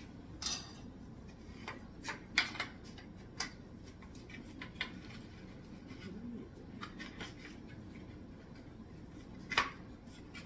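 Thin metal frame poles of a four-tier mini greenhouse clinking and knocking as they are handled and fitted together. The sharp clicks are scattered and irregular, with the loudest about two and a half seconds in and another near the end.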